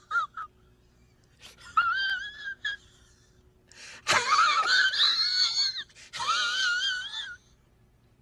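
A comedy sound effect of high-pitched, wavering, squeaky squeals in four bursts: a brief one at the start, one about two seconds in, the longest about four seconds in that opens with a sharp click, and a last one about six seconds in.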